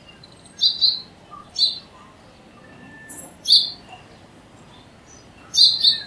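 House sparrow chirping: four short calls, some of them doubled notes, spaced one to two seconds apart.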